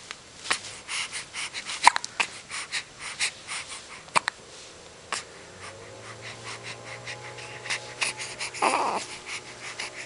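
Newborn baby hiccuping and breathing: short sharp hiccup clicks every second or so, the loudest about two seconds in, between soft breaths, with a louder breathy puff near the end.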